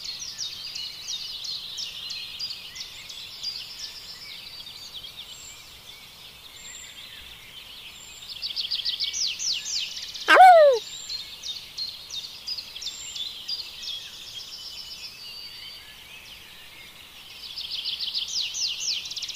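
Small birds chirping in quick runs of high, falling notes, in spells that swell and fade, loudest about eight seconds in and near the end. About ten seconds in, one short loud call slides down in pitch above the chirping.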